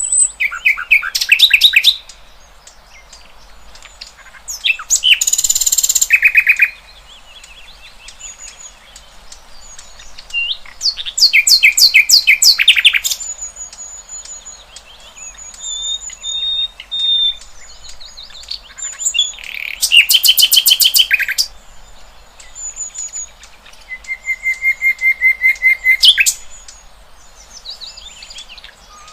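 Songbirds singing: five loud bursts of fast repeated notes, each lasting a second or two and coming a few seconds apart. Between them are thin, high whistles and chirps.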